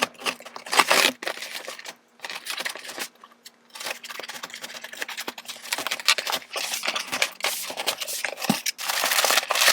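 A shipping box and its paper packaging being opened and handled: irregular rustling, crinkling and tearing, with short pauses about two and three and a half seconds in.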